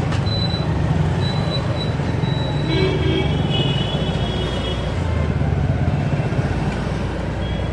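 Two-wheeler engine running steadily with a low rumble amid street traffic. A high steady horn tone sounds for about two seconds near the middle.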